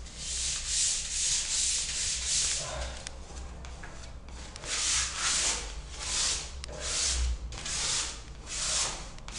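Folded sandpaper rubbed by hand over a wall skimmed with acrylic putty, in quick back-and-forth strokes about two a second, with a softer pause of a second or so midway. It is the final sanding that smooths out the defects and old tile joints before painting.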